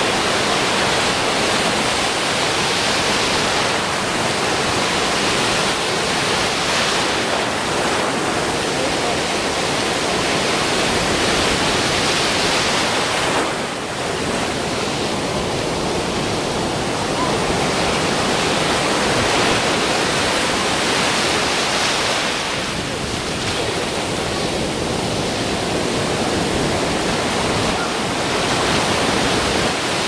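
Big ocean surf breaking and foaming in the shallows: a loud, continuous rushing hiss that swells and eases slowly as the waves come through.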